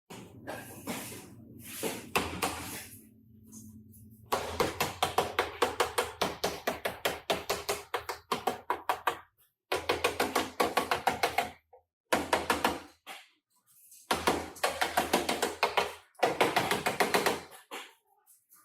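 Rapid, even tapping at about five or six strokes a second, like a body hammer working sheet metal, in several short runs that stop and start abruptly.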